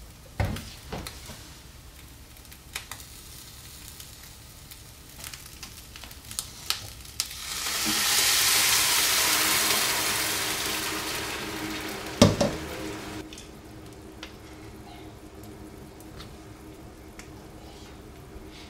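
Water poured into a hot frying pan of rice sautéed in butter: a loud hissing sizzle that swells about seven and a half seconds in and dies away over about five seconds, with a sharp clunk near its end. Light clicks and knocks come before it, and a quieter steady simmer follows.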